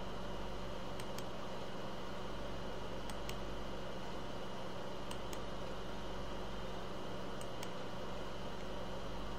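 Faint computer clicks in quick pairs, about one pair every two seconds, as pages of a PDF are turned on screen, over a steady low electrical hum and fan-like room noise.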